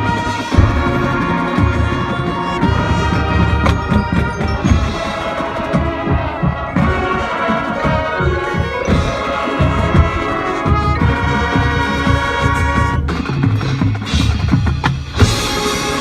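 High school marching band playing its field show: brass chords with trumpets and trombones, over marching percussion and drums.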